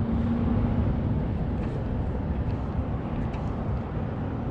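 Steady low rumble of road traffic with no distinct events.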